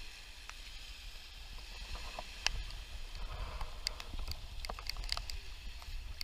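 Wind rumbling on the microphone over small waves lapping on a pebble shore. From about halfway, scattered clicks and crunches of stones, as of footsteps on shingle.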